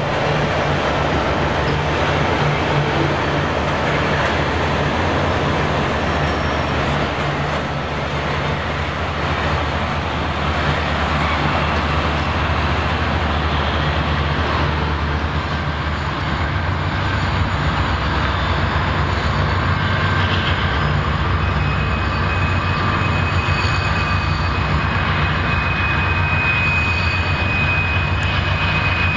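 Diesel engines of a Loram rail grinder train running as it rolls past, a steady low throb with rolling noise. Later, passing freight diesel locomotives take over, and a thin steady high squeal joins in over the last several seconds.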